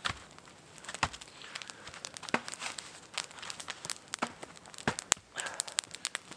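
Open wood campfire crackling and popping in quick, irregular snaps, with two heavier knocks, about a second in and near five seconds, as logs are set on the fire.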